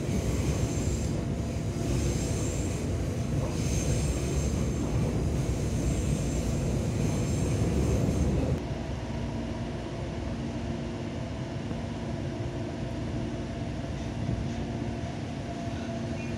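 Electric commuter train running, heard from inside the carriage: a steady rumble of wheels on the track. About eight and a half seconds in, it drops suddenly to a quieter, steadier running noise with a faint hum.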